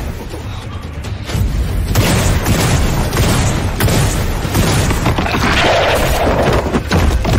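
Anime fire-battle sound effects: a loud, sustained boom of flames and blasts that swells sharply about two seconds in, over background music.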